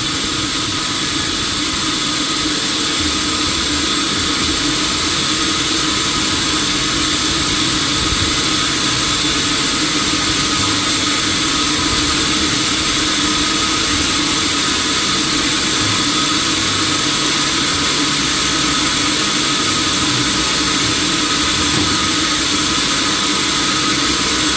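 Sawmill machinery running steadily, a constant mechanical drone with fixed tones and a high hiss.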